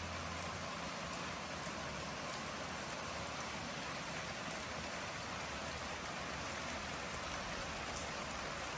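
Steady rain falling, an even hiss with faint scattered drop ticks, from a thunderstorm. A low hum underneath stops within the first second.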